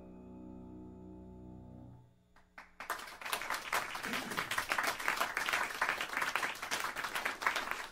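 A piano's final soft chord rings on and is cut off about two seconds in. After a brief pause, an audience starts applauding, and the clapping goes on to the end.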